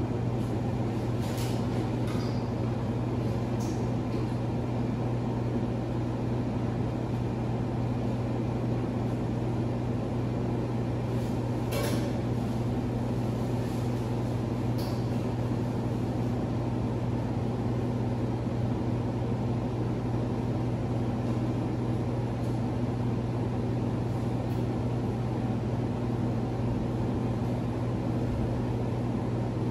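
Steady low electrical hum of laundry-room machinery, with a few brief knocks and rustles as clothes are loaded into a top-loading washer.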